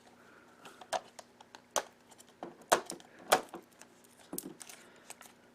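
Fingers picking at the cellophane wrap of a sealed VHS-C tape box: irregular crinkles and sharp plastic clicks, the strongest a few clicks around two and three seconds in.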